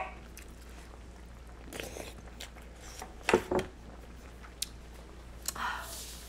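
A person chewing a mouthful of hot Korean army base stew (budae jjigae) with the mouth closed: soft scattered mouth clicks, two louder wet chews about three seconds in, and a short breath out near the end.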